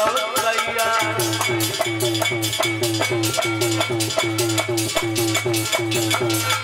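Devotional music from the accompanying band: a fast, steady beat of drum strokes whose low notes bend downward, with a melody line heard only in the first second.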